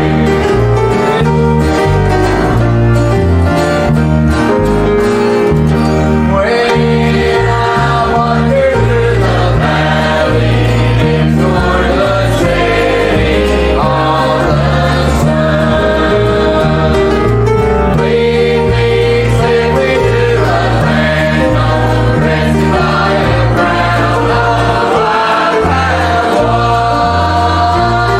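Gospel singing with instrumental accompaniment in a country or bluegrass style, with guitar.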